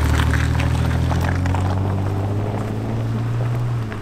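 A car engine pulls away and drives off down a dirt track, a steady low hum that slowly fades as the vehicle leaves, with scattered crackles from the tyres on the track.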